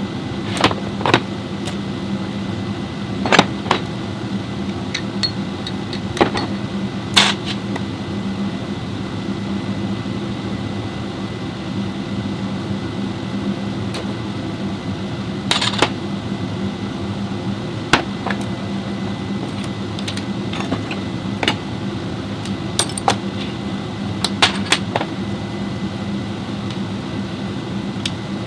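A steady mechanical hum with a low, even drone, broken by scattered sharp clicks and metallic knocks.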